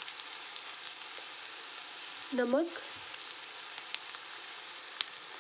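Sliced onions and whole spices frying in hot mustard oil in a kadhai: a steady sizzle dotted with small crackles, with one sharp tick near the end.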